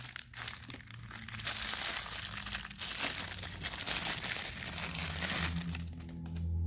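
Thin plastic bag crinkling as hands strip it off a new engine piston. Steady background music comes in near the end.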